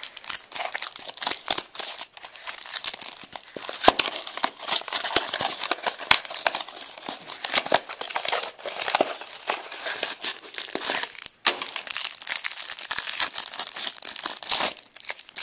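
A football trading-card pack wrapper crinkling and tearing as the pack is worked open by hand, with a steady run of crackles and a short pause about eleven seconds in.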